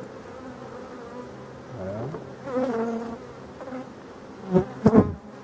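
Honeybees humming over an open hive: a steady drone, louder about two to three seconds in as bees fly close. Two sharp knocks near the end are the loudest sounds.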